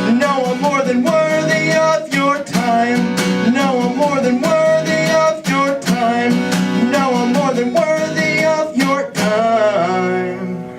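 Closing bars of a song on solo acoustic guitar, strummed in a steady rhythm with a melody line held over it. A last chord is struck about nine seconds in and rings out, fading near the end.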